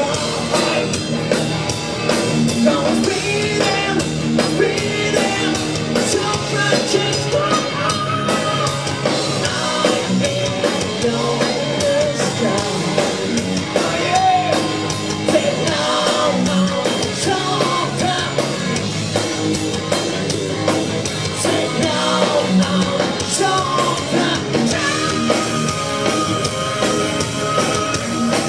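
Rock band playing: electric guitar, bass guitar and drum kit, with a singer's vocals over them. A long held note comes in near the end.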